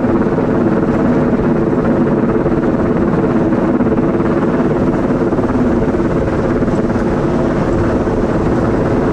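Helicopter hovering during an antenna lift, a loud steady drone of rotor and engine.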